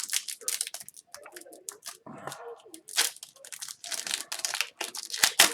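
Foil wrapper of a hockey card pack being torn and crinkled open in a stubborn struggle: a dense run of crackles and rips, the loudest sharp tears about three seconds in and near the end.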